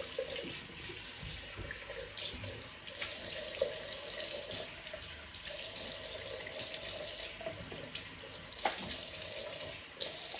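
Water running from a tap into a bathroom sink while something is rinsed under the stream. The flow and splashing shift every second or two.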